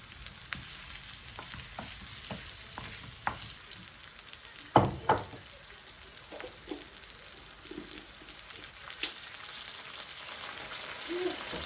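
Steady sizzling hiss with scattered crackles and pops, like food frying, and one loud knock about five seconds in.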